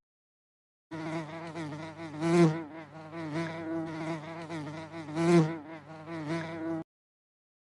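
A bee buzzing, its drone wavering in pitch and swelling louder twice as if flying close past. It starts about a second in and cuts off near the end.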